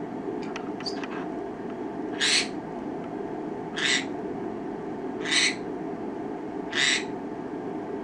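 Pineapple green-cheeked conure giving four short, harsh screeching calls, about a second and a half apart.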